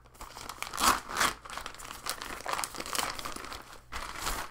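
Plastic mailer bag crinkling and rustling as it is torn open along its pull tab and the wrapped contents are pulled out, in uneven bursts, the loudest about a second in.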